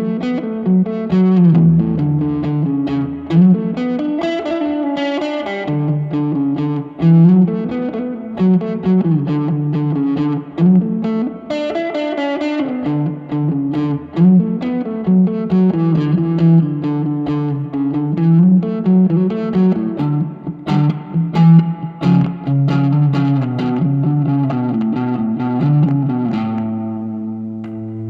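Electric guitar played through a Vox AC10C1 valve combo amp: a continuous run of picked single notes and chords, ending on a chord left to ring out and fade near the end.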